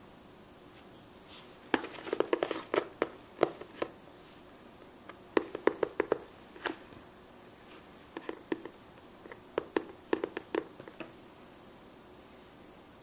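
Cardboard shoebox being tapped and scratched in four short bursts of quick strikes with pauses between, by fingers on the outside and a Bengal cat pawing at it from inside.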